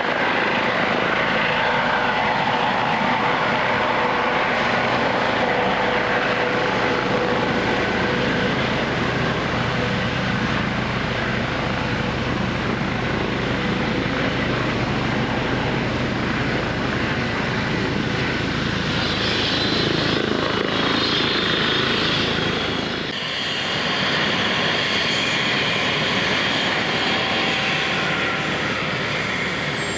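Airbus H135 helicopter's twin turbine engines and rotor running, with a steady high turbine whine over the rotor noise. The sound changes abruptly about 23 seconds in, and near the end a high whine falls steadily in pitch, the turbines winding down.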